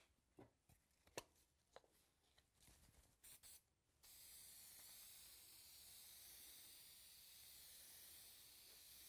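Aerosol can of spray adhesive spraying: a steady, faint hiss that starts about four seconds in and runs on for about six seconds. It comes after a few light clicks and two short puffs.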